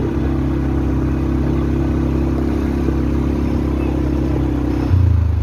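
Quad bike (ATV) engine running at a steady speed, close up. Near the end it changes to a lower, deeper note.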